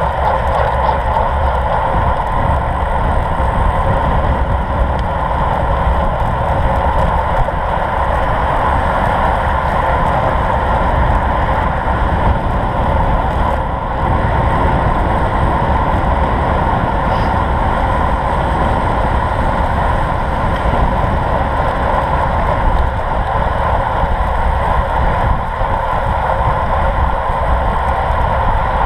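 Steady wind rush and tyre noise from a road bike riding at speed in a group, with wind buffeting the bike-mounted camera's microphone.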